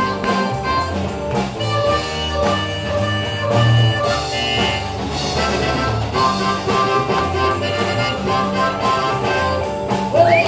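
Live rock band playing an instrumental passage with electric guitar, bass guitar, drum kit and keyboard over a steady beat. A woman's singing voice comes in near the end.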